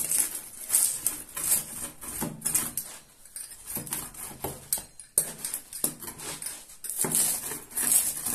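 Pizza-cutter wheel rolling through a crisp, pan-fried layered katmer on a wooden board, giving irregular crackling crunches as the flaky crust breaks.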